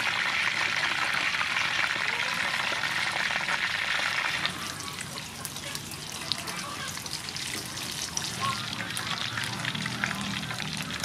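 Batter-coated blue crab pieces deep-frying in a wok of hot oil. A loud, dense sizzle drops about four and a half seconds in to a quieter bubbling crackle with scattered pops.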